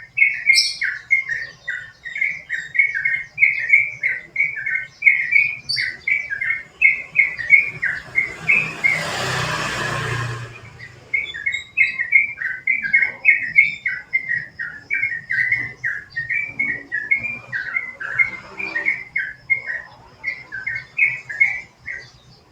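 Yellow-vented bulbul (trucukan) singing a long run of quick, repeated chirping phrases, about two a second. Near the middle the song breaks off for about two seconds under a rushing noise, then carries on.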